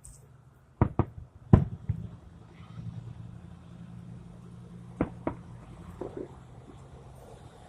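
Firework explosions: a quick pair of bangs about a second in, a louder bang half a second later, then two more a little after the midpoint and softer pops after them. A low steady hum runs underneath.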